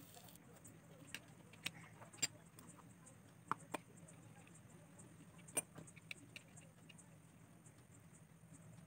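Faint, scattered light clicks and taps from hands handling miniature steel cookware and small dough discs, over a low steady hum.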